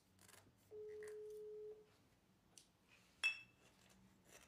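A steady electronic beep on one tone, lasting about a second, then a single sharp clink with a brief ring about three seconds in as bottles are handled.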